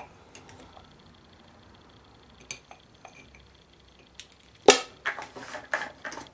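Clinks and clicks of metal pliers and a ceramic cup being handled at a mower carburetor: a few light ticks, one sharp click about four and a half seconds in, then a quick run of clinks near the end.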